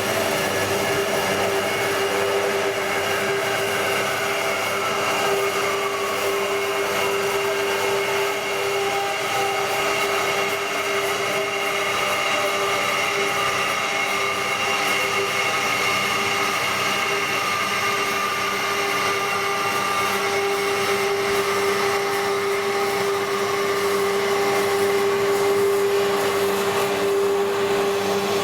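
Asada Beaver 4F ECO metal-cutting band saw running steadily: a continuous machine whine with several held tones, one of them sliding down in pitch a few seconds in.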